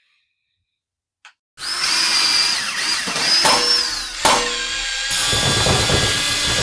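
A power tool starts about a second and a half in and runs steadily, with a high whine that rises and falls and two sharp knocks partway through.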